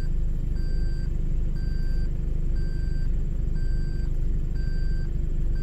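A vehicle's reversing beeper sounding about once a second over a steady low engine rumble.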